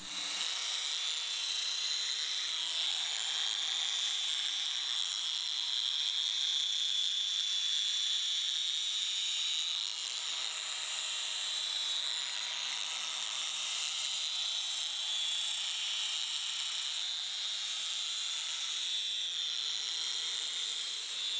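Small electric belt sander (belt file) running steadily with a high whine, its narrow belt grinding the sharp edges off a lathe faceplate to deburr them.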